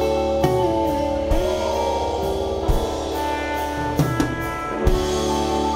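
Live rock band playing: electric guitar chords ringing over bass and a drum kit, with cymbal wash and several kick drum hits.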